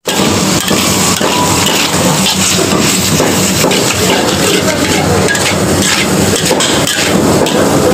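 Metal spatula scraping and clanking repeatedly against an iron wok as chicken and vegetables are stir-fried, over a steady sizzle.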